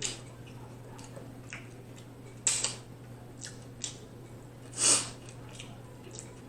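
Close-miked mouth sounds of someone eating steak tacos: scattered wet chewing clicks and smacks, with two louder noises about two and a half and five seconds in, over a steady low hum.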